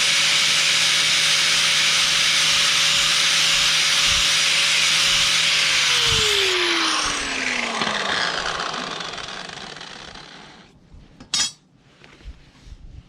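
Electric grinder running at full speed against the steel mower blade, taking off the burr along the sharpened edge, with a steady whine under a loud grinding hiss. About six seconds in it is switched off and winds down with a falling whine; a short sharp knock comes near the end.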